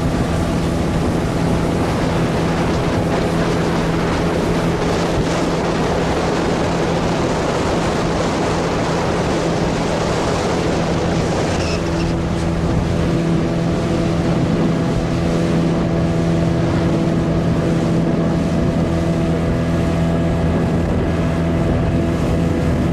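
Speedboat engine running with a steady hum under the rush of wind and water. About halfway through the rushing eases and the engine hum stands out more.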